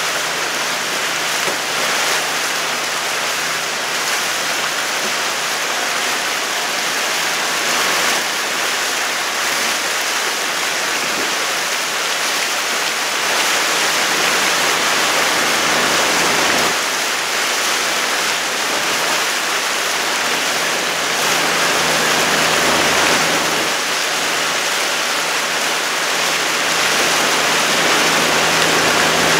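Steady rush of water and wind past a moving boat, with a low, steady motor hum underneath.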